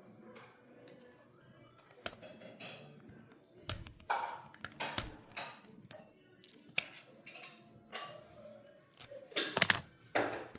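Irregular clicks, taps and scrapes of small hard objects, a few with a short ringing ping, bunching up into a quick flurry near the end.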